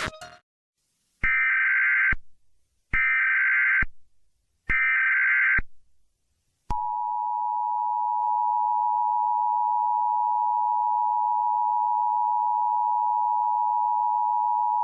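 Emergency Alert System header: three identical one-second bursts of warbling digital data tones, then the steady two-tone EAS attention signal, held for about eight seconds. Together they mark the start of a new emergency alert broadcast.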